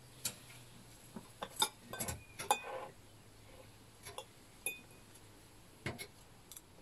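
Metal fork and spoon clinking and scraping against a ceramic plate while eating: a string of sharp, irregular clinks, a few ringing briefly.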